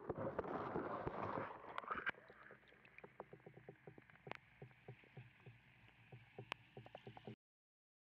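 Lakeside water lapping and splashing, fuller for the first two seconds, then dropping to quiet, irregular small clicks and drips before cutting off suddenly about seven seconds in.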